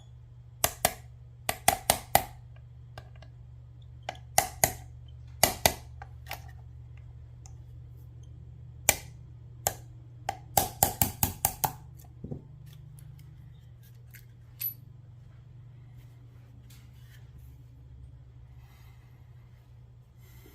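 Metal parts of a Girsan 2311 pistol being handled and worked apart: a run of sharp clicks and clacks in quick clusters, around two seconds in, again from about four to six seconds, and a fast flurry near eleven seconds, then only a few faint taps.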